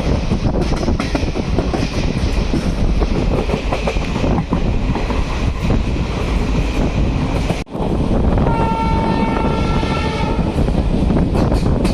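Passenger train running on the rails, heard from aboard: a steady rumble with rail clatter and wind noise. After a short break in the sound about two-thirds of the way through, the locomotive's horn sounds steadily for about two seconds.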